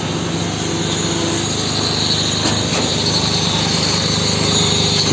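Construction machinery running steadily during a concrete slab pour: a steady low engine hum with a high small-engine whine over it.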